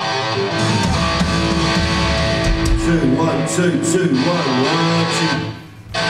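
Band playing loud rock: electric guitar through an amplifier with a drum kit. The playing drops away sharply shortly before the end, then comes back for a moment.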